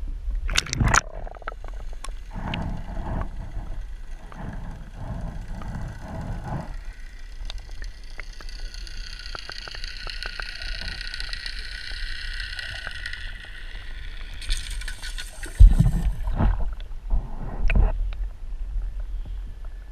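Underwater sound picked up by a GoPro in its waterproof housing held in lake water: muffled sloshing and rumbling, with knocks against the housing near the start and again a few seconds before the end. A steady whining hum sits under it for several seconds in the middle.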